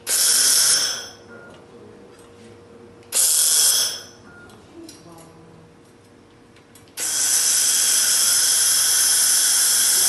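1500 W laser welding machine welding stainless steel, its torch giving a high, whining hiss in bursts: two of about a second each near the start, then a steady run from about seven seconds in.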